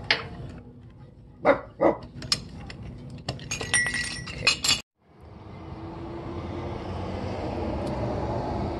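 Steel C-clamp and hand tools clinking and knocking against a tractor PTO shaft's U-joint as it is worked on, with a few louder sharp knocks and a run of ringing metallic clinks. Near the middle it cuts off suddenly and gives way to a steady outdoor hiss.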